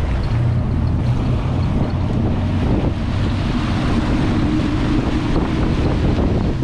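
A Sea Ray Sundancer 370 motor cruiser's engines droning steadily under way, with wind buffeting the microphone.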